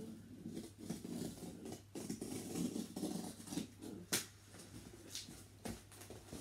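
A blade scraping and cutting through packing tape on a cardboard box, with irregular scratching and rustling of the cardboard and a sharp click about four seconds in.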